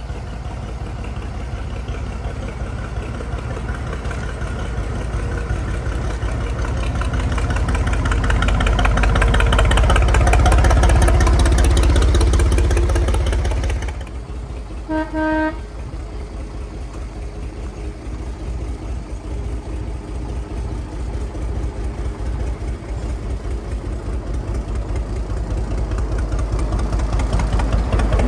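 Small narrow-gauge diesel locomotive running with a rapid, even engine beat that grows louder as it comes near. The sound drops suddenly about halfway, then the locomotive gives one short horn toot and its engine grows louder again as it approaches.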